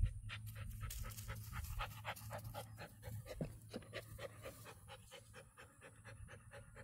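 Maremma sheepdog panting rapidly close to the microphone, an even run of quick breaths about five a second, with a low steady hum underneath.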